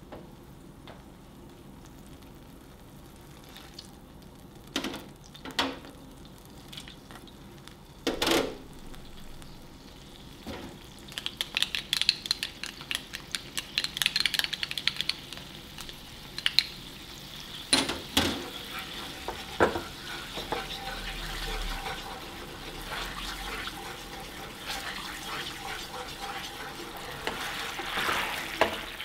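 Sauce of soy sauce, mirin and ketchup going into a hot frying pan with the meat juices, sizzling and bubbling as it reduces, with a wooden spoon scraping and stirring. A few single knocks come in the first third, and the sizzling crackle starts about a third of the way in and grows louder.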